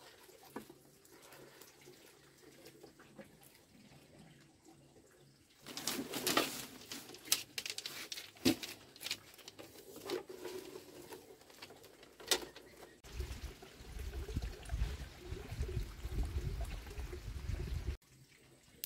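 Bamboo kindling and dry corn cobs catching in an open hearth fire. Sharp cracks and snaps start about six seconds in, and a low rushing rumble takes over for the last few seconds, then cuts off suddenly.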